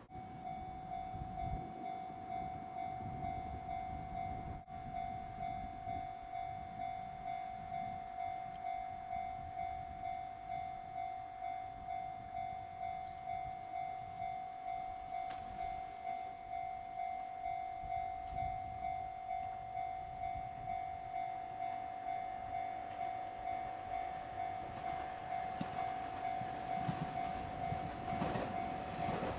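Japanese level-crossing alarm ringing in a steady, evenly repeating electronic ding. A train's rumble builds near the end as it approaches the crossing.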